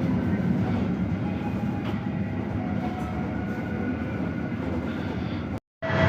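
Steady running rumble of the Serayu passenger train in motion, heard from inside a carriage. It drops out for a moment near the end, then comes back louder.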